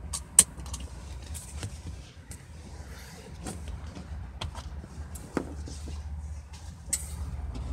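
Low steady rumble heard from inside a vehicle's cabin, with scattered clicks and knocks from the phone being handled; a sharp knock about half a second in is the loudest.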